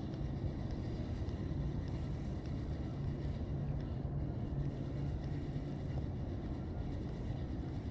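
Boat motor running steadily with a constant low hum.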